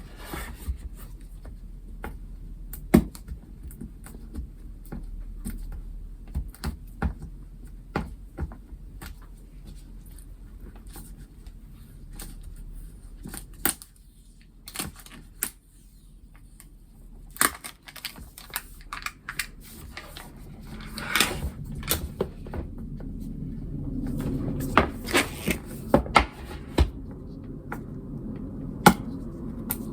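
Hands handling keyboard packaging: scattered clicks, taps and knocks of cardboard and plastic being opened and moved. From about 20 seconds in, a steady rustling and sliding runs under louder, sharper knocks.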